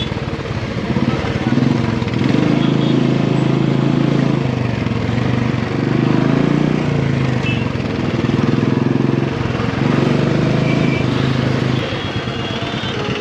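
Motorcycle engine running at low speed, swelling and easing with the throttle every few seconds.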